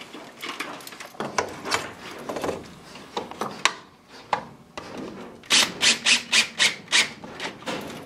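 Rubbing and scraping of hands working inside a furnace cabinet, handling the pressure switches, their rubber vacuum tubes and wiring. A little past halfway comes a quick run of about seven loud scrapes, roughly four a second.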